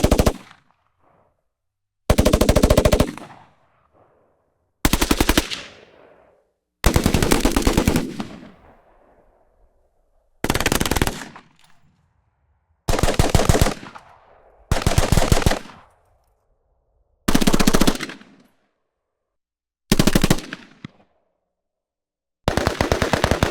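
Rifle firing on full automatic in about nine short bursts, each half a second to a second of rapid shots. Each burst is followed by a fading echo, with short silences between bursts.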